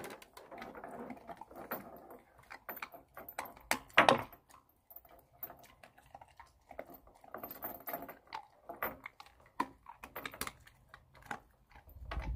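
Jindo dog eating dry food from a plastic bowl: irregular crunching and small clicks and rattles of kibble against the bowl, with the collar chain clinking, and one sharper knock about four seconds in.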